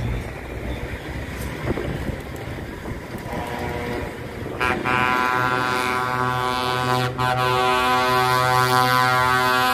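Heavy trucks' diesel engines and tyres as a truck and trailer rolls past. About halfway in, a loud, steady chord of several tones sets in suddenly and holds.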